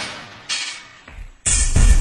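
Soundtrack music: a sharp, noisy hit fades away, then a loud, bass-heavy electronic beat cuts in about a second and a half in.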